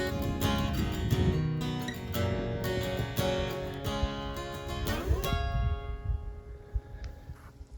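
Background music: strummed acoustic guitar with a steady rhythm, fading out over the last couple of seconds.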